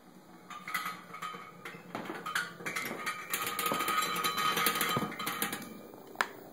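A vibrating Hexbug robot bug buzzing and rattling in dense rapid ticks as it skitters over a hardwood floor and a floor-vent grille, growing louder and denser before stopping, then one sharp click near the end.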